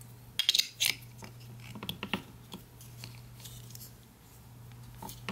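Small plastic clicks and taps of batteries being handled and pressed into the plastic holder of a clamp meter's battery cover: a few sharp clicks about half a second in, a few more around two seconds, and one near the end, over a faint steady hum.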